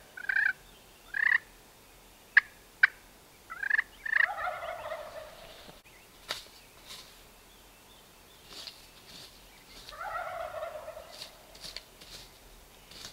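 Wild turkey gobbler gobbling twice, a rattling, falling call about four seconds in and again about ten seconds in. Short calls come near the start, and two sharp clicks come between them.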